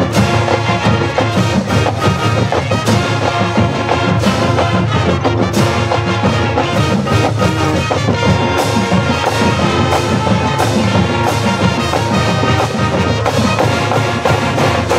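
High school marching band playing a full-ensemble number: brass and winds over drumline and front-ensemble percussion, with a steady beat.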